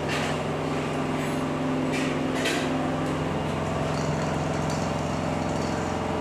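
A steady low mechanical hum, like a running electric motor, with a few brief knocks about two seconds in.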